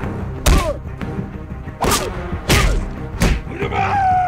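Four heavy punch thuds, spaced about half a second to a second and a half apart, over background music. A long, pained vocal cry starts near the end.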